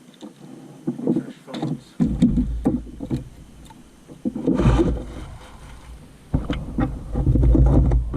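Knocks and bumps in a small inflatable boat, with three spells of heavy low rumble: gear and the boat being handled.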